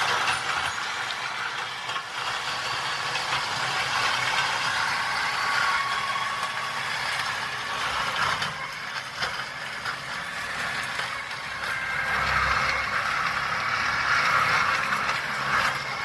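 Engine of a heavy brush- and weed-clearing machine running steadily.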